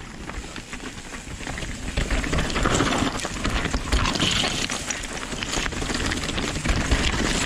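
Nukeproof Dissent 290RS mountain bike riding down a rocky shale trail: tyres crunching over loose stone, with the bike rattling and many small knocks. It grows louder about two seconds in as the speed picks up.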